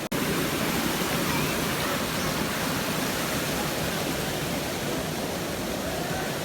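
Waterfall rushing: a steady, even noise of falling water, with a very short dropout right at the start where the audio is cut.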